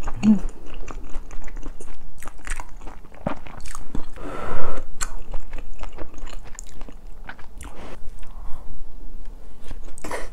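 Close-miked chewing of a mouthful of cheese fried rice, with many small wet mouth clicks and crackles. There is a louder rustling noise about halfway through.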